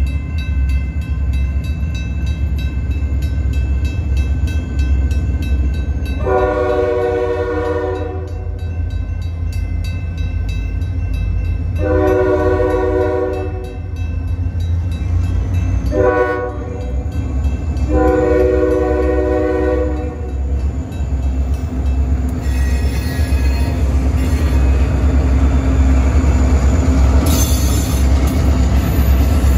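Freight diesel locomotive horn sounding the grade-crossing signal: two long blasts, a short one and a final long one, over the steady ringing of the crossing bells and the deep rumble of the locomotives' diesel engines. Toward the end the lead locomotives roll into the crossing and the noise of heavy wheels on the rails grows.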